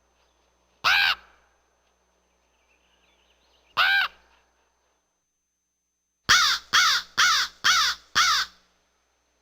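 Raven calling: two single hoarse croaks a few seconds apart, then a quick run of five croaks, about two a second.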